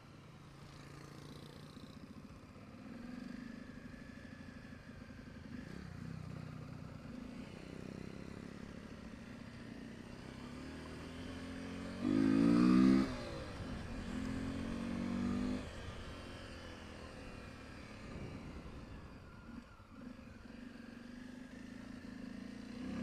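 Honda XR 250 Tornado's single-cylinder four-stroke engine running while riding at low speed, its note rising and falling, with a loud rev about 12 seconds in and a shorter one soon after.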